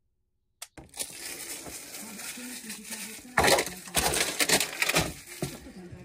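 After a brief silence, rustling, scraping and knocking start as someone cleans out the cabinet under a kitchen sink. A cluster of louder scrapes comes about three and a half to five seconds in.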